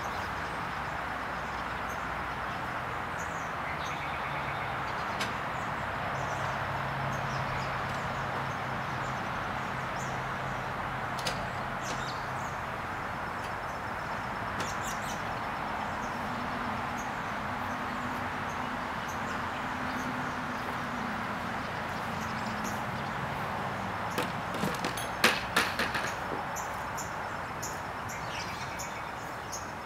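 Steady outdoor background hiss with faint, scattered bird chirps and a faint low hum that comes and goes. About 25 seconds in comes a short cluster of sharp knocks and clatters, the loudest sounds here.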